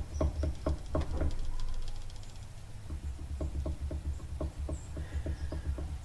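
Irregular light clicking, a few clicks a second, from the driveline and A727 TorqueFlite transmission of a 1964 Dodge Custom 880 as the driveshaft is lifted by hand and the transmission and engine shift together. The owner takes it for a failed transmission mount.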